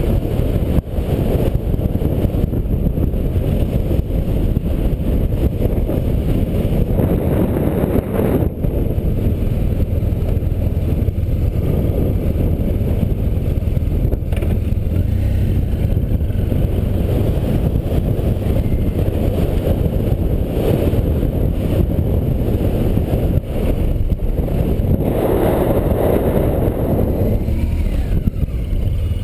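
Adventure motorcycle riding over dirt, its engine running steadily under a constant rush of wind on the microphone, with one louder surge near the end.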